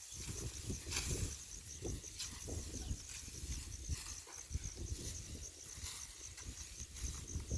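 Insects chirping in a steady, rapid high-pitched pulse, over a low rumble with scattered knocks and clicks.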